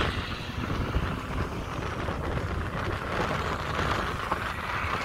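Several small children's motorbikes running at a distance as they ride around, heard as a steady mechanical drone, with wind rumbling on the microphone.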